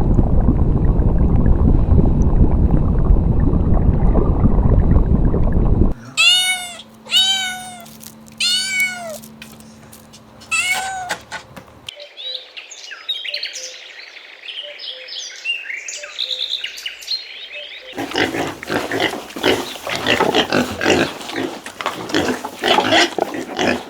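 A cat meowing about five times, high-pitched rising-and-falling calls, in the middle of a run of other animal sounds. A loud low rumbling noise comes before the meows, high thin chirping follows them, and a dense crackling clatter fills the last few seconds.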